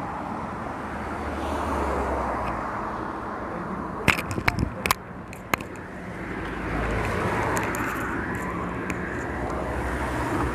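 Road traffic: cars passing on the road beside a footpath, a steady rumble and hiss of tyres and engines. A few sharp knocks about four to five and a half seconds in.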